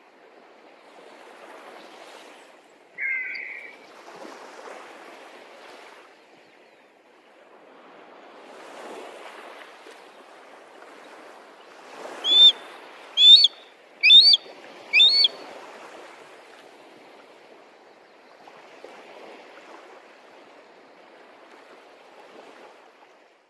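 Sea surf washing in slow swells, with one short bird call about three seconds in and a loud run of four high, sharp bird calls about a second apart midway through.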